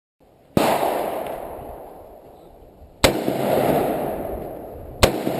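M&P AR-15 rifle firing three single shots about two and a half and then two seconds apart, each crack followed by a long echoing decay.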